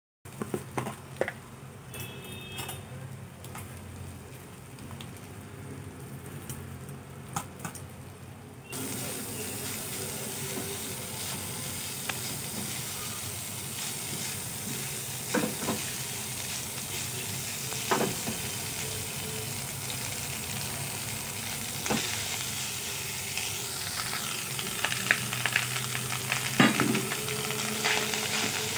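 Leftover cooked rice and vegetables frying in a nonstick pan, sizzling as they are stirred with a spatula, with scattered clicks and several sharp knocks of the spatula against the pan. The sizzle grows louder and steadier about nine seconds in.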